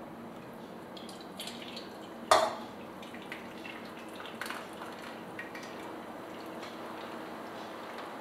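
Broth pouring in a thin stream from a stainless saucepan through a cheesecloth-lined sieve into a steel bowl, a faint steady trickle, with one ringing metal clink about two seconds in.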